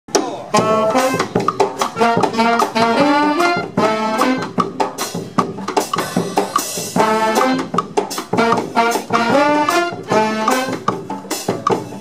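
Street brass band of saxophones, trumpet and tuba playing a lively tune over a regular beat of sharp hits.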